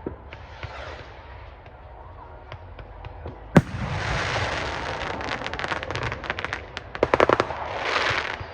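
Fireworks display: scattered pops and hissing, then one sharp loud bang about three and a half seconds in, followed by several seconds of dense crackling.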